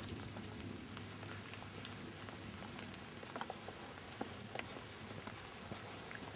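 Light rain falling on the leaves of woodland, a steady soft hiss with scattered close drops ticking at irregular moments.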